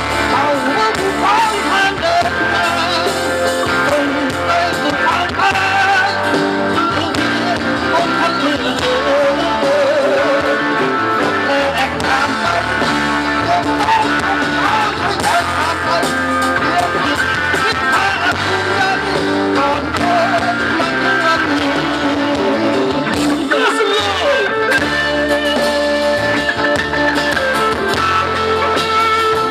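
Live band playing a long instrumental passage of a Thai song, led by guitar over bass and drums, loud and unbroken.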